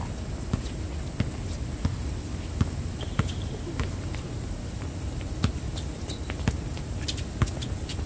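A basketball bouncing on an outdoor hard court, with players' footsteps: irregular sharp thuds, about a dozen in eight seconds, over a steady low background hum.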